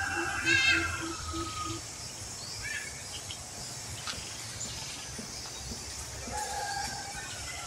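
Outdoor ambience of bird chirps and calls over a steady high hiss, the loudest a short chirp about half a second in, with more calls near the end.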